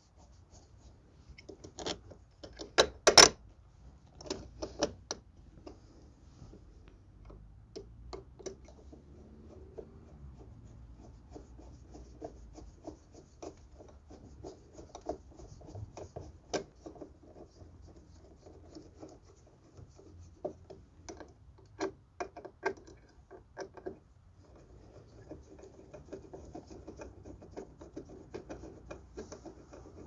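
A screwdriver turning the mounting screws of a GFCI outlet into a metal electrical box: scattered scraping and clicks of tool, screw and box, with a sharp knock about three seconds in.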